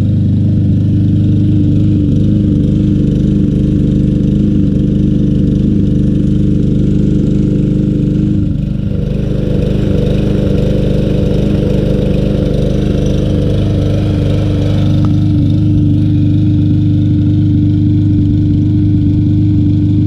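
Briggs & Stratton 625EX 150cc single-cylinder lawn mower engine running steadily, its tone shifting briefly in the middle. It is running rough on stale gas, which the owner suspects has gummed up the carburetor.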